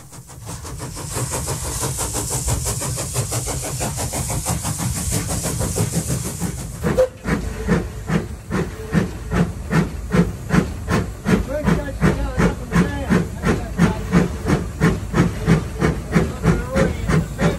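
Puffing Billy narrow-gauge steam locomotive heard from the cab: a loud steady hiss of steam with fast chuffs at first, then, after an abrupt change about seven seconds in, regular exhaust chuffs about two a second as it works along the line.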